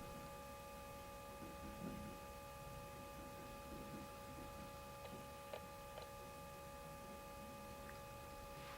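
Very quiet room tone with a faint steady electrical hum of several high tones, and a few tiny ticks about midway.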